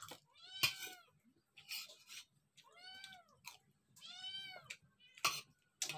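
Domestic cat meowing three times, each call rising then falling in pitch. Short sharp clicks and knocks come in between the calls.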